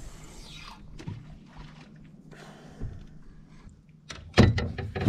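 Faint handling ticks over a steady hiss, then a couple of loud thumps near the end: gear or hands knocking against the plastic kayak.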